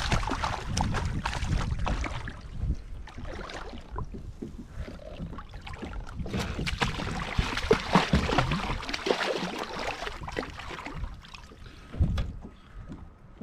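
Wind on the microphone with scattered knocks and clicks of rod, reel and kayak as a channel catfish is reeled up and lifted from the water. One sharp thump stands out near the end.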